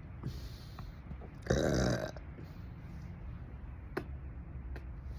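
A person burping once, a single deep burp of about half a second about a second and a half in, from an overfull stomach after a large meal. A faint click comes near the end.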